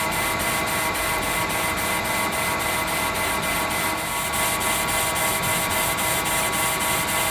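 Metal lathe running under cut, its tool facing the end of a metal bar: a steady machine hum with several steady tones, and a faint regular tick about four times a second.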